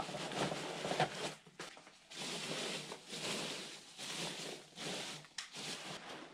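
Polystyrene packing peanuts rustling in a cardboard box as a hand pushes them down around a bubble-wrapped item, in a run of short rustles.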